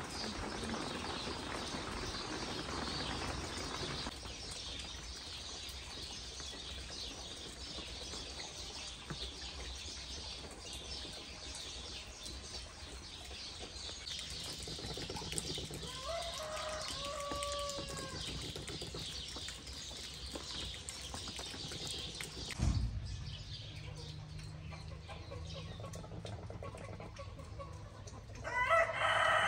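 A rooster crowing near the end, the loudest sound, over a background of small birds chirping. A shorter falling chicken call comes about halfway, and there is a short thump a little after two-thirds of the way in.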